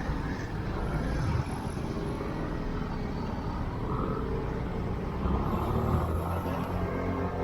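Steady road traffic noise heard from a motorcycle riding in city traffic: engine and road rumble with other cars and heavy vehicles around.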